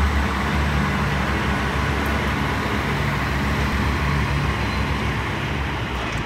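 Diesel multiple unit with a GWR Class 143 Pacer at the rear running along the platform and moving away, its underfloor diesel engines giving a steady low drone over wheel and rail noise that slowly fades.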